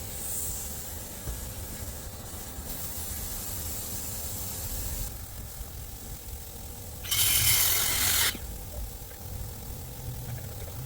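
A loud hiss lasting about a second, about seven seconds in, over a steady low rumble.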